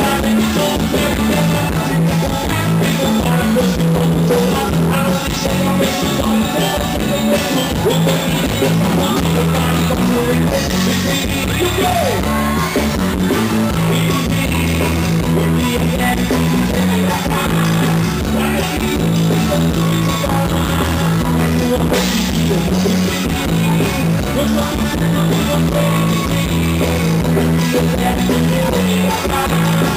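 Forró band playing live, with drum kit and guitar at a steady beat.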